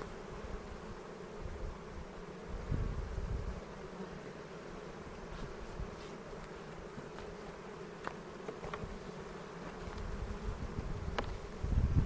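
Honey bees flying about an opened hive, a steady hum, with a few faint clicks in the second half.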